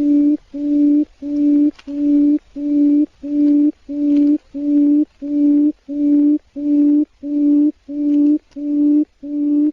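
Quail calling in a long, even series of low, steady hoots, each about half a second long, coming a little less than one and a half times a second.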